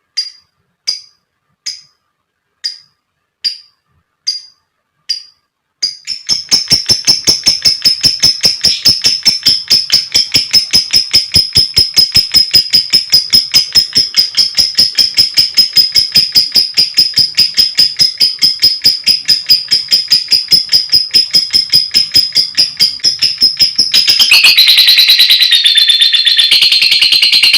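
Lovebird calls: sharp high chirps spaced about two a second, breaking about six seconds in into a rapid, continuous run of chirps, and near the end into a denser, lower long chatter (ngekek).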